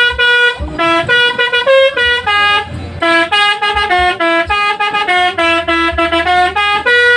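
Telolet bus horn, a multi-tone air horn, playing a quick melody: a loud run of short pitched notes, several a second.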